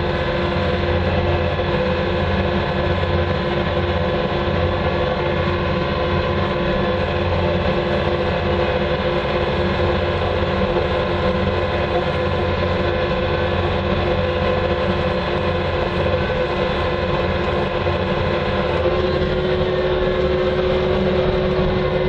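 Bobcat 2410 loader's engine and drivetrain running steadily at road speed, heard from inside the cab as a constant rumble with a steady whine. Near the end a further tone joins in, and the pitch begins to drop as the loader slows.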